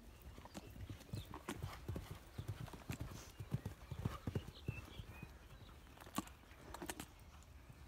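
Connemara pony mare's hooves cantering on a sand arena surface, an uneven run of thuds. The heaviest thuds come around a jump and landing about four seconds in.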